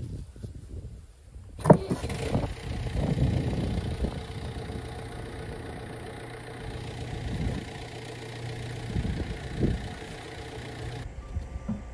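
An engine running steadily, with irregular scrapes and squelches of a trowel scooping wet mortar from a plastic tub into a grout bag.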